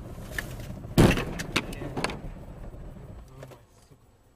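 Vehicle collision: a sudden loud bang about a second in, followed by a second or so of rattling and clattering that dies away over the moving car's road noise.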